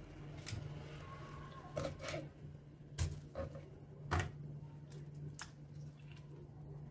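Raw fish being handled on a wooden cutting board and set into plastic containers: a handful of scattered soft knocks, taps and wet handling noises over a steady low hum.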